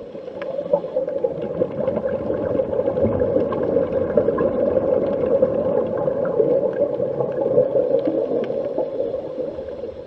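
Loud, steady, dense droning noise, strongest in the low-middle range, fading in at the start and holding level throughout.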